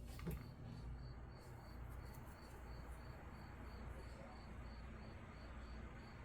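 9-inch plastic-bladed box fan running on low speed, almost silent: only a faint low hum. A cricket chirps steadily behind it, about three chirps a second, and there is one small click just after the start.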